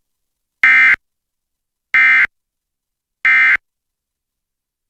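Emergency Alert System end-of-message signal: three short bursts of SAME digital data, each about a third of a second long and about 1.3 s apart, marking the end of the alert.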